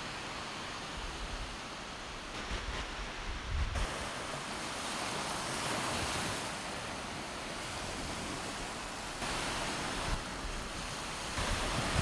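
Small waves breaking and washing up on a sandy beach, the surf swelling and easing, with gusts of wind buffeting the microphone.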